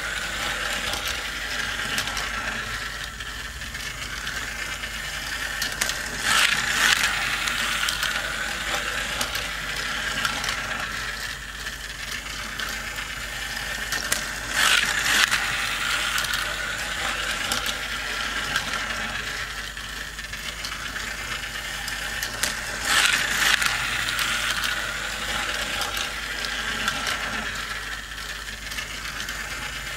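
Battery-powered plastic toy race track running: a steady whirring and clicking from its plastic gear drive as the toy cars are carried round. A louder clatter comes about every eight seconds.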